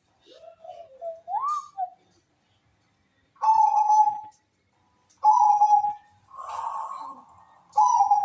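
Zebra dove (perkutut) cooing: three short, clear coo notes about two seconds apart, preceded by soft gliding whistled notes.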